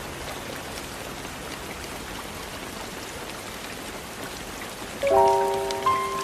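Steady rain falling, an even hiss of drops. About five seconds in, a soft music chord of held notes comes in over the rain, louder than it, and moves to a new chord just before the end.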